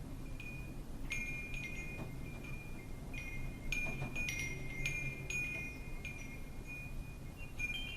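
Wind chimes ringing irregularly as the wind knocks them, single strikes and small clusters of clear high ringing tones that hang and overlap, over a low steady wind rumble.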